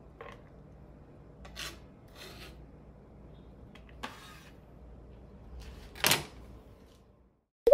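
A few short scrapes and knocks of a hand and a chef's knife on a plastic cutting board, the loudest about six seconds in as the knife goes down on the board, with a brief sharp click at the very end.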